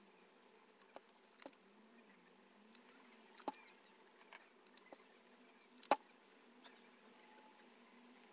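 Faint handling sounds of cotton fabric being folded and creased by hand, with a few small sharp taps, the sharpest about six seconds in.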